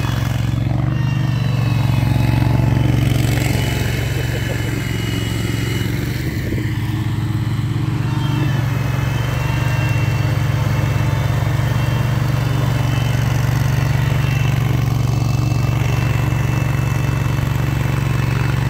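Petrol engine of a Spider remote-controlled slope mower running steadily as the machine drives and cuts through tall grass, an even drone with no change in speed.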